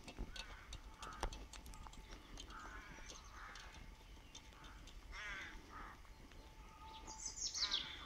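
Wild birds chirping and singing, short scattered calls, with a louder call sweeping down in pitch near the end.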